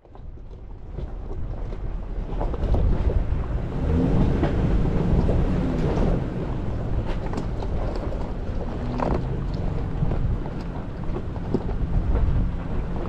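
Toyota Tacoma TRD Off Road pickup crawling over a rocky dirt trail: a steady low rumble with tyres crunching over loose stones and scattered clicks and knocks from rocks under the truck, plus wind on the hood-mounted microphone. The sound builds up over the first couple of seconds.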